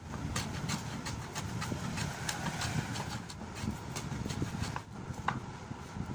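Wooden hand plane shaving a cricket bat handle in quick repeated strokes, the blade scraping across the wood about three times a second. The handle is being planed down to shape where it meets the blade.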